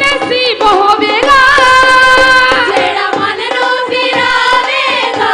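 Live Punjabi worship song: women's voices singing long held, wavering notes through microphones over a steady hand-drum beat.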